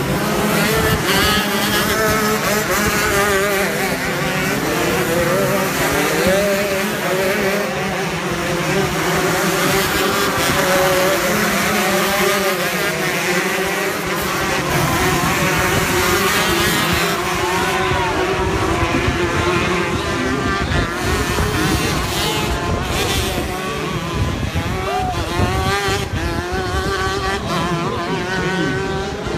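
Several 125cc two-stroke shifter kart engines racing together, their pitches rising and falling as they accelerate and slow.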